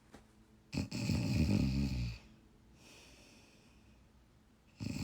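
A person snoring with the mouth closed: one snore about a second in, lasting over a second, and another beginning near the end.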